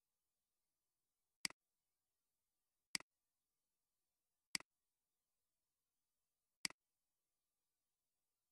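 Computer mouse button clicking four times at uneven intervals, each click a sharp tick followed at once by a softer second tick as the button is pressed and released.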